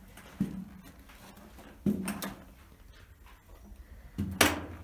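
A few sudden knocks and scrapes, the loudest near the end, in a small enclosed room.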